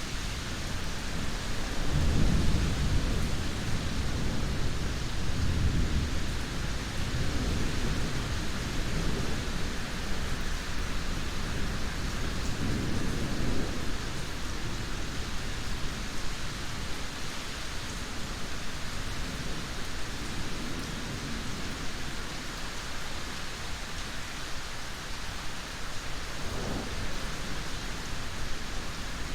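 Steady heavy rain with low rolling rumbles of thunder, the strongest a couple of seconds in, another around the middle and a short one near the end.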